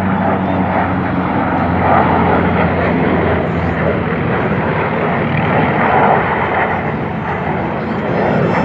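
Formation flyby of two jet fighters and a propeller-driven warbird: loud, steady jet engine noise with a low hum underneath, swelling slightly a couple of times.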